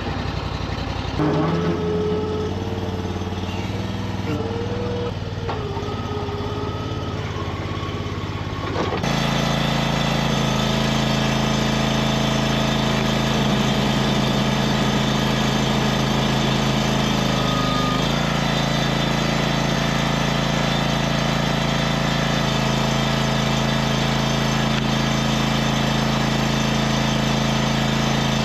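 Wood-Mizer FS500 log splitter's small gas engine running steadily. About nine seconds in the sound changes abruptly to a stronger, steadier hum, and the engine speed dips briefly twice later, as when it takes a load.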